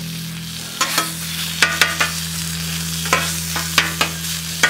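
Thin-sliced ribeye sizzling on a Blackstone flat-top griddle while a metal spatula chops and scrapes at it, giving irregular sharp clacks from about a second in over the steady sizzle and a low hum.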